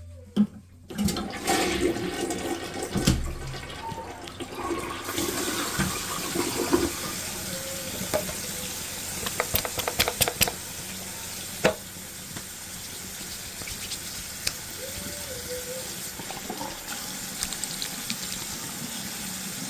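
Toilet flushing: a sharp click of the handle, then a loud rush of water that settles about five seconds in into a steadier hiss of running water.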